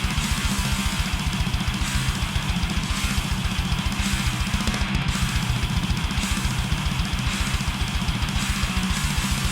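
Heavily distorted electric guitar playing a death metal riff through an Acid Rain Pedalworks Judas HM2/fuzz blend pedal, set to its buzzy "chainsaw destruction" Swedish chainsaw tone. Backed by a fast, steady kick drum.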